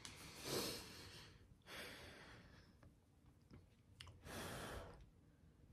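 Three soft breaths close to the microphone, each about half a second long, with a couple of faint clicks between the second and third.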